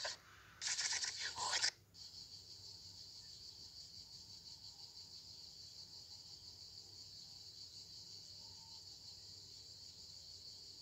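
Steady, even high-pitched insect chorus outdoors in the sun. A louder burst of mixed noise fills the first second or two, then cuts off suddenly.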